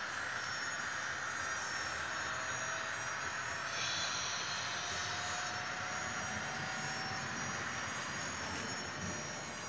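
Märklin HO model train running along the layout track, a steady rolling hiss with a faint motor whine rising slowly in pitch; it gets briefly brighter and louder about four seconds in as the train passes close.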